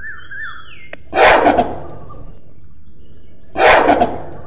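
Gorilla giving two short, harsh calls about two and a half seconds apart, over faint bird chirps and a steady high hiss.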